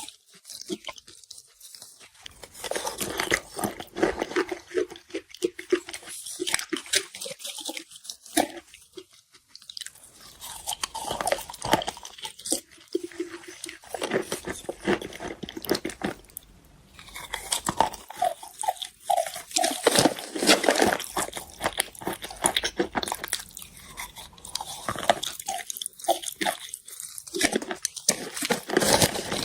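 Wet chalk being bitten and chewed close to the microphone: bouts of soft crunching with short pauses between bites.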